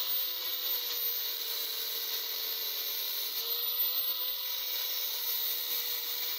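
Angle grinder with a thin cut-off disc cutting a steel bar: a steady motor whine over a grinding hiss. The disc lifts off the metal briefly partway through, then bites again.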